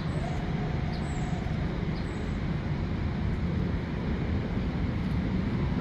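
Bombardier M7 electric train standing at a station platform, its on-board equipment giving a steady low hum and rush.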